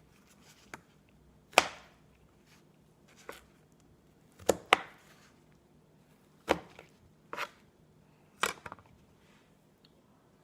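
Knife cutting through a peeled prickly pear (cactus fruit) and knocking on a chopping board: about half a dozen sharp knocks at irregular intervals, with a few softer taps between them.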